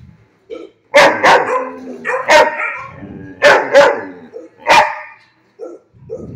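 A dog barking: about six loud barks, mostly in quick pairs.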